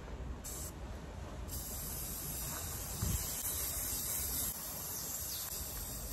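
Aerosol spray-paint can spraying paint onto a leather seat cushion: a short burst about half a second in, then one long steady hiss starting about a second and a half in.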